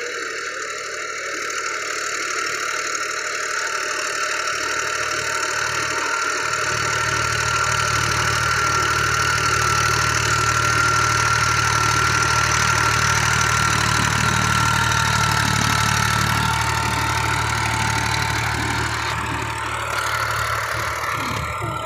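Massey Ferguson tractor's diesel engine running under load while it pulls a rotavator through the soil, with a steady high whine over it. It grows louder about six seconds in as the tractor comes closer, then eases off near the end.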